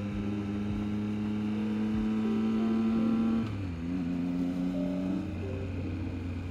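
Triumph Trident 660's inline three-cylinder engine running under way, its note climbing slightly. About three and a half seconds in, the pitch and level drop suddenly, and the engine then holds a steady, lower note.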